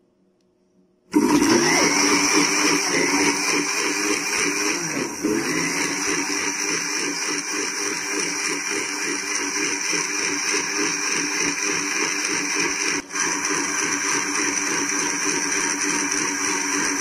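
Electric blender (mixer-grinder) switches on suddenly about a second in and runs steadily, puréeing mint leaves and water in its glass jar, with a brief dip about three-quarters of the way through.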